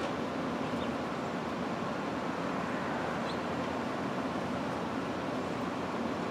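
Steady, even outdoor background noise with a low rumble, with two faint, short high chirps, about a second and about three seconds in.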